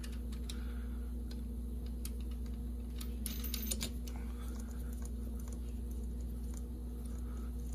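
Wing nut on a chrome drop-base air cleaner lid being turned down by hand to secure the lid: scattered light metal clicks and scrapes, busiest about three seconds in, over a steady low hum.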